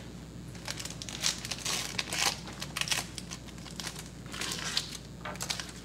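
Metallic foil wrapper of a 2012 Fleer Retro football card pack crinkling as it is torn open by hand: an irregular run of sharp, crackly rustles.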